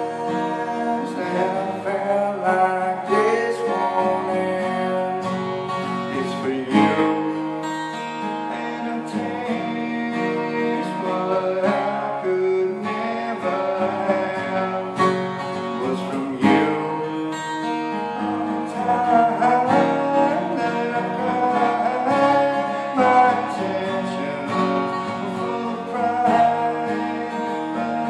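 Acoustic guitar being played, a steady run of picked and strummed notes without a break.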